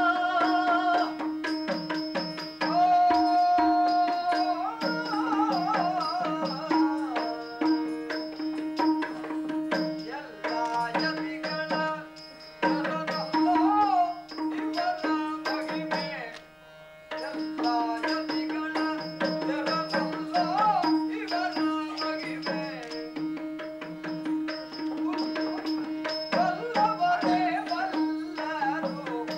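Yakshagana accompaniment: maddale drum strokes over a steady drone, with a voice singing a melodic line. The music drops away briefly about 17 seconds in, then resumes.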